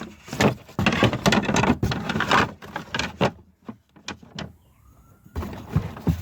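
Rustling and knocking of things being handled, with many sharp clicks. About halfway through it falls to near quiet with a few separate clicks, then picks up again near the end.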